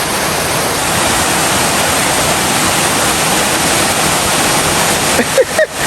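Waterfall rushing: a steady hiss of falling water.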